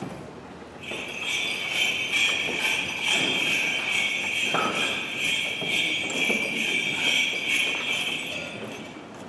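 Small bells jingling in an even rhythm, starting about a second in and dying away just before the end.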